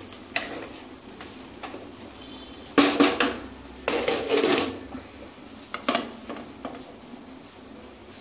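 A wooden spatula knocking and scraping in a kadai, then a glass lid clattering as it is set onto the pan about three to four and a half seconds in, followed by a couple of lighter knocks.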